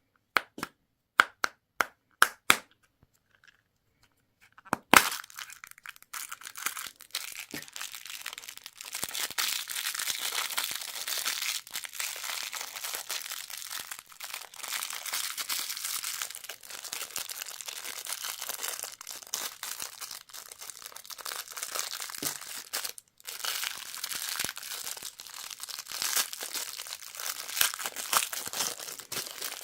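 Plastic candy and toy packaging being opened: about six sharp clicks, then a loud crack about five seconds in. After that comes long, continuous crinkling and tearing of a plastic wrapper, with one short pause late on.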